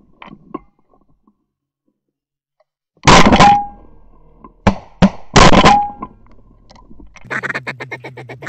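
Two shotgun shots about two and a half seconds apart, each a loud blast with a brief ringing tone after it, and two sharper, fainter cracks between them. Near the end, rapid duck quacking starts up.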